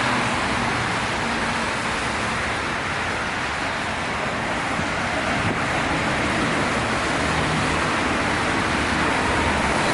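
Steady road traffic noise of vehicles running past on a highway.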